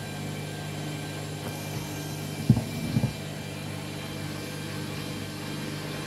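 Front-loading washing machine drum spinning with a bath mat inside, a steady motor hum with a faint high whine. About halfway through there is a sharp knock, then two more close together half a second later.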